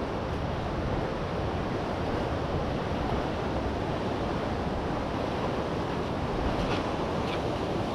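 Steady rushing of a fast-flowing mountain river's whitewater.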